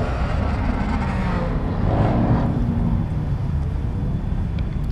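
Car engine and tyres as a red coupe drives slowly past close by, over a steady low rumble of other cars running. The sound swells and then fades about two seconds in.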